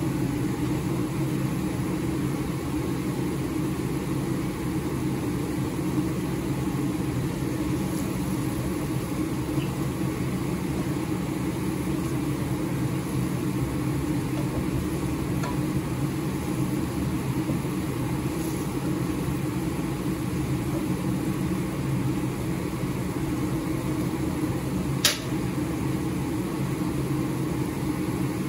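Steady low hum over a pan of chicken boiling on the stove, with one sharp click near the end.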